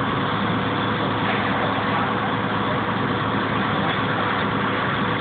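Fire engine running steadily at a structure fire: a constant engine drone with a rushing hiss over it.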